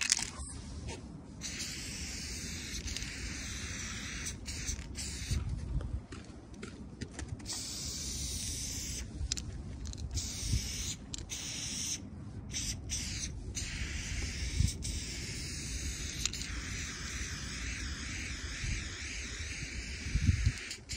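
Aerosol spray-paint can hissing as yellow paint is sprayed onto a wall, in long bursts broken by short pauses where the nozzle is let go, with a low rumble underneath.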